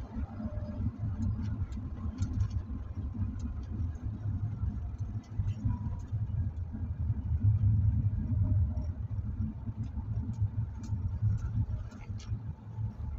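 Car driving on a highway, heard from inside the cabin: a steady low rumble of engine and road noise, with scattered faint clicks.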